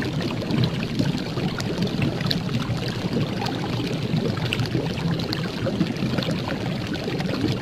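Steady rushing noise flecked with many faint crackles and ticks.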